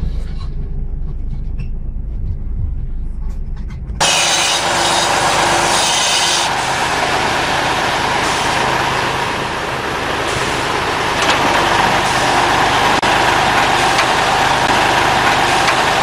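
Low rumble of a vehicle heard from inside its cab. About four seconds in it cuts abruptly to a louder, hissier, steady running of a log truck's engine as its mounted crane loader works the logs.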